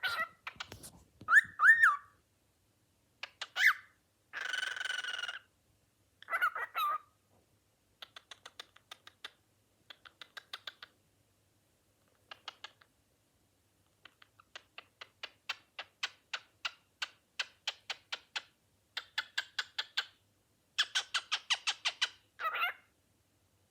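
Cockatiel vocalizing: a few short whistled notes that bend up and down, a harsh screech about four seconds in lasting about a second, then long runs of rapid clicking chatter.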